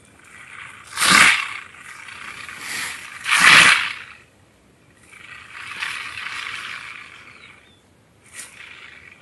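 Porcupine rattling its raised quills as a defensive warning: a dry, hissing rattle that comes in bursts, loudest twice, about a second in and again about three and a half seconds in.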